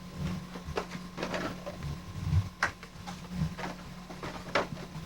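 Scattered light knocks and rustles of toy groceries being handled and packed into a bag, over a steady low hum.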